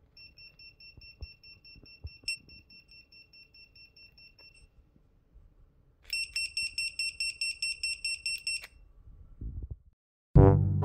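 JHE20B Finder lipo beeper sounding a rapid series of high beeps, about five a second and fairly quiet, with a click about two seconds in. A louder run of beeps, about six a second, starts around six seconds in and cuts off sharply. Brass music starts just before the end.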